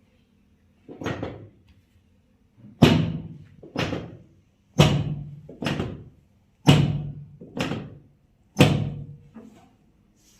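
A series of heavy thuds during a hands-on chiropractic treatment: about eight blows, each dying away within half a second, mostly in pairs of a loud hit followed a second later by a softer one.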